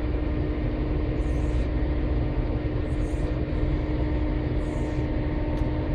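Engine and road noise heard inside a vehicle cab while driving in rain: a steady low rumble with a constant hum, and a soft swish from the windscreen wiper about every second and a half.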